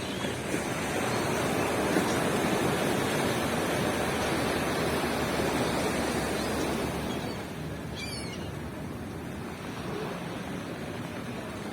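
Ocean surf: a wave breaks and washes up the beach as a swelling rush of noise that eases off after about seven seconds. A short high chirp comes about eight seconds in.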